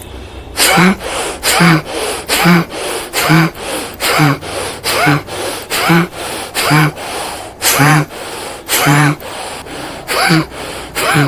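Bhastrika pranayama (bellows breath): a person breathing forcefully in and out through the nose in a steady rhythm, about one loud breath a second alternating with a softer one. Each loud breath carries a short hum of the voice.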